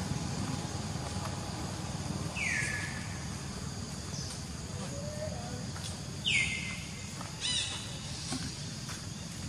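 Short high-pitched calls, each sweeping quickly downward, three times a few seconds apart, the second the loudest, over a steady low outdoor rumble.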